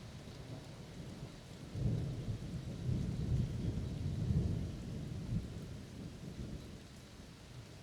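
Rolling thunder: a low rumble that starts suddenly about two seconds in, swells for a few seconds and dies away, over the steady hiss of rain.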